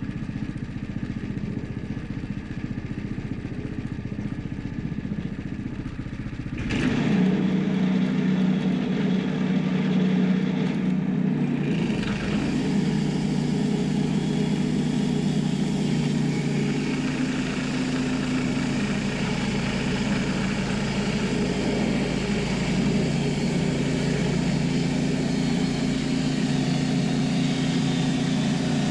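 An engine running steadily, then about seven seconds in it suddenly revs up and holds at a higher, louder, steady speed.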